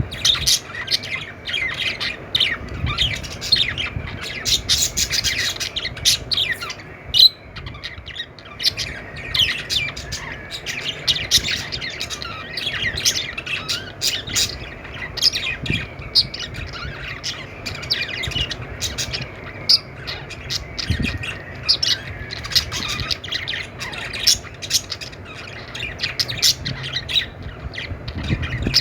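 A group of budgerigars chattering and squawking, many short chirps and harsh calls overlapping without a break.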